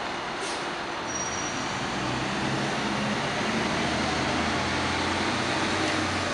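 City street traffic noise: cars passing, with the low rumble of an engine growing a little louder after about two seconds.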